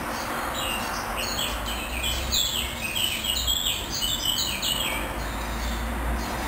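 Washing machine running with a steady rumble, with a rapid string of short high chirps over it for about four seconds.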